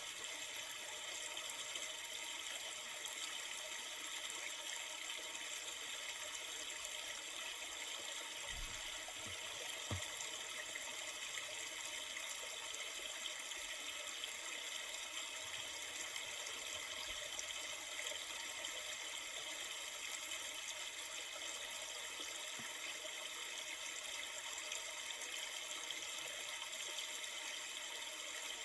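Steady flowing river water, an even rushing and babbling, with a faint low thump or two about nine seconds in.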